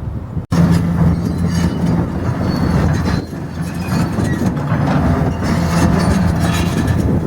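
Diesel engine of heavy demolition machinery running steadily, with repeated metallic clanking typical of steel crawler tracks.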